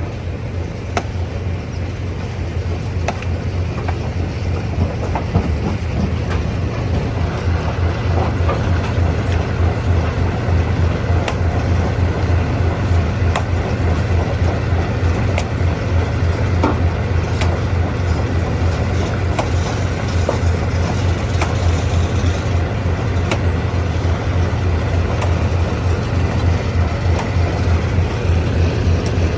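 Stone crusher running steadily with a strong deep hum, with occasional sharp clicks and knocks of stone.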